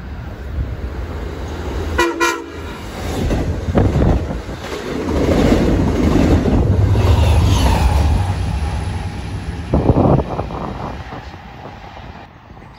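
A Long Island Rail Road train gives one short horn blast about two seconds in, then its double-deck coaches rumble past close by, the clatter of wheels on rail growing loud, with a sharp louder clack near the end before it fades.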